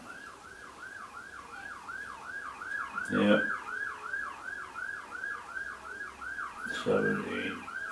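Electronic siren in a fast yelp: a pitched tone sweeping down and back up, about three to four times a second, steady in level.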